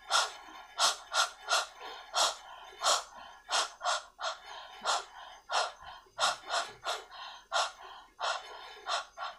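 A woman making the letter H sound over and over: short, breathy 'h' puffs like panting, about two a second.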